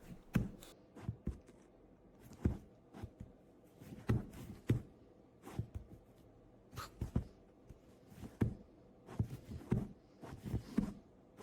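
Scattered soft knocks and thumps at irregular intervals, about one every half second to second, over faint room tone.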